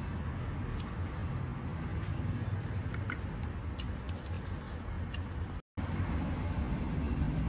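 Light clicks of wooden chopsticks against a ceramic bowl, a few of them between about three and five seconds in, over a steady low background rumble; the sound drops out for a split second near the end.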